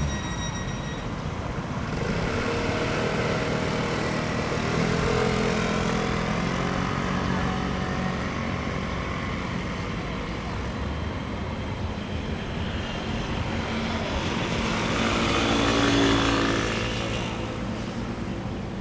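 Road traffic going by, with one vehicle passing close about sixteen seconds in, loudest then and fading after.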